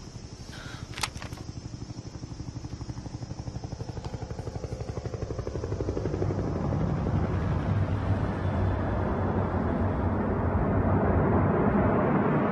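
Dramatic score underscoring the scene: a rapid, even pulsing drone that swells steadily louder and begins to rise into a whoosh near the end. There is a single sharp click about a second in.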